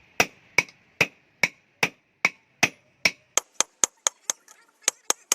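Hammer blows on steel at an anvil in a steady rhythm, about two and a half strikes a second, each with a ringing tone. About three seconds in, the strikes turn lighter and sharper and speed up to about four a second.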